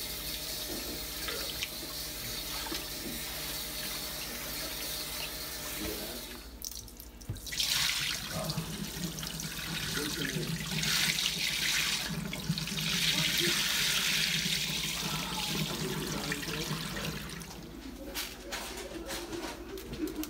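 Glutinous sticky rice being rinsed in a plastic bowl at a kitchen sink: water running and splashing at first, then the cloudy rinse water poured off into the sink in several gushes from about seven seconds in, stopping about seventeen seconds in.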